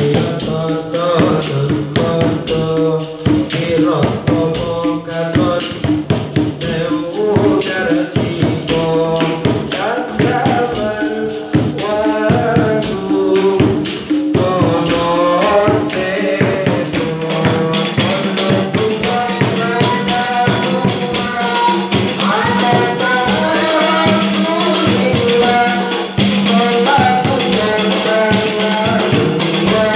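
A sholawat devotional song: a woman sings into a microphone over rebana frame drums, including a jingled one, beating a steady rhythm.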